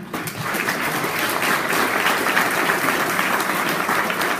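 Audience applauding: many hands clapping at once, breaking out suddenly and holding steady.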